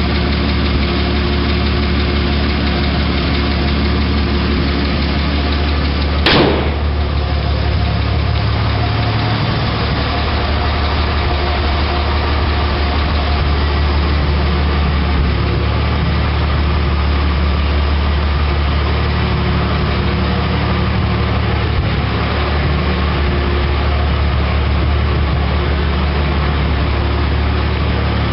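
1987 Dodge D100's 225 slant-six engine idling steadily, its carburettor freshly adjusted. A single sharp knock comes about six seconds in.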